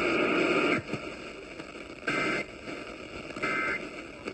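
Emergency Alert System SAME data bursts, the End of Message code: two short warbling bursts of two-tone digital data, each about a third of a second long and about a second apart, over steady radio hiss. Before them a louder noisy stretch cuts off just under a second in.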